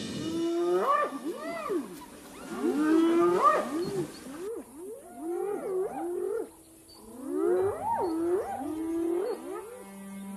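Wild animal calls: a run of pitched, rising-and-falling calls in bouts, with a brief lull about two-thirds of the way through.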